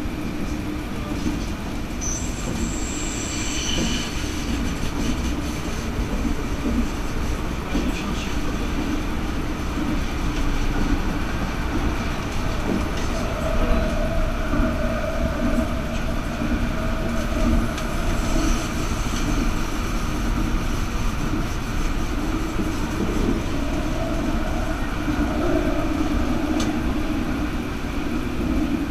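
Stadler Variobahn light-rail tram running along its track, heard from inside behind the driver's cab: a steady rolling rumble with a motor tone. Brief high-pitched wheel squeal comes about two seconds in and again around the middle.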